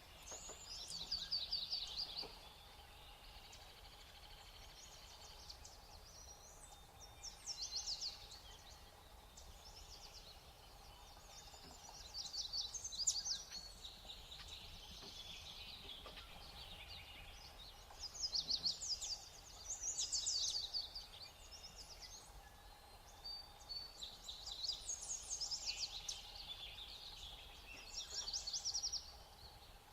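Small songbirds calling in short bouts of rapid, high twittering trills, about seven bursts a few seconds apart.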